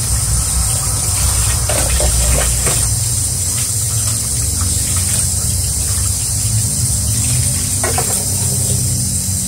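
Tap water running into a stainless steel sink as dishes and metal tongs are rinsed under it, with a few light clinks about two seconds in and again near the end. A steady low hum runs underneath.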